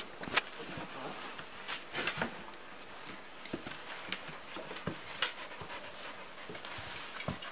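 Puppies playing with their mother dog: small scattered dog sounds, scuffling and rustling against the bedding, with short irregular taps and brushes.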